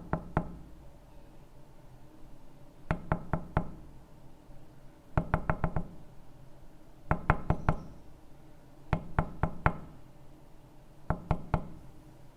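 Knocking on a door in quick bursts of three to six raps, each burst about two seconds after the last.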